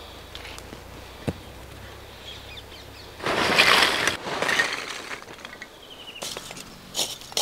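Lumps of charcoal poured from a cloth sack into a brick-lined pit, clattering for about two seconds a little past the middle, followed by a few sharp clicks near the end.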